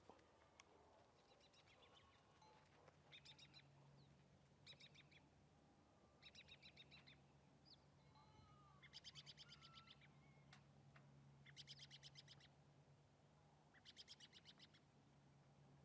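Faint bird calls: short, rapid chattering trills, about six of them a couple of seconds apart, with a few thin chirps, over a low steady hum.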